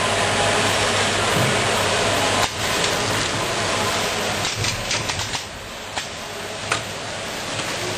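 BVM Compacta automatic packaging machine running on toilet seats: a steady rush of machine noise with a low hum that drops off suddenly about two and a half seconds in, followed by a string of sharp mechanical clicks and knocks.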